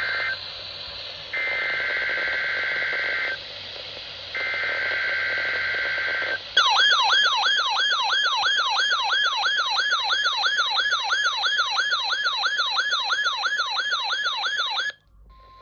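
NOAA Weather Radio Required Weekly Test tones: the end of one SAME digital header burst and two more, each a buzzy two-tone data burst of about two seconds, a second apart. Then an electronic alert tone sweeps rapidly up and down, about three sweeps a second, for about eight seconds and cuts off sharply near the end.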